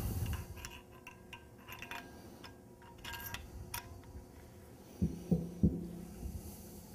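Faint clicks and light metal taps of a collar block being fitted by hand onto a waterjet on/off valve assembly, with a few soft, dull thumps a little after five seconds in.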